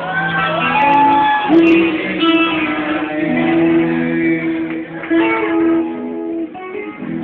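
Live band music with an electric bass guitar playing, under sustained melody notes and chords.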